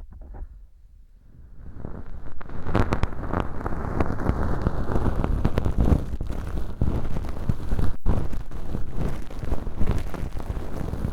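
Bonten feather earpick brushing and rustling inside an ear-cleaning model packed with dry, flaky fake earwax, heard close up as a dense scratchy crackle. It starts faint and grows loud about two seconds in.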